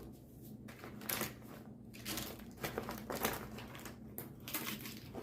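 Packaging crinkling and rustling as small items are handled and pulled out, in irregular bursts.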